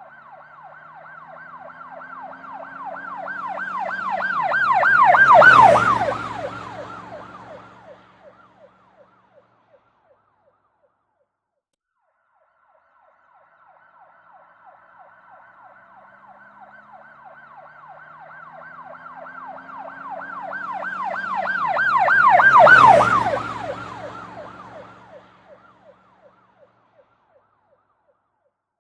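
Police car siren passing by twice: a fast warbling yelp that grows louder, peaks, then drops in pitch and fades away, with the vehicle's engine and tyre noise swelling under it as it goes past. The two pass-bys are separated by a few seconds of near silence.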